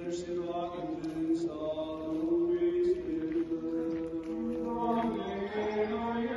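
Orthodox church chant: several voices singing slow, long-held notes over a lower sustained note, the melody moving step by step.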